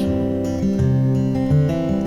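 Music: acoustic guitar playing chords in a country-folk song, with no singing, the chord changing a few times.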